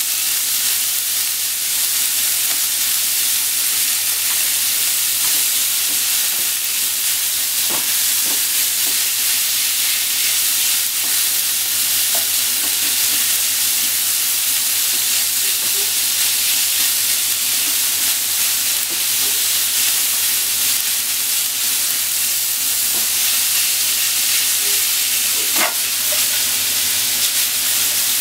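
Thin slices of pork sizzling steadily in a hot nonstick frying pan as they are stir-fried and turned with wooden chopsticks. A few light chopstick taps against the pan can be heard, one about eight seconds in and more near the end.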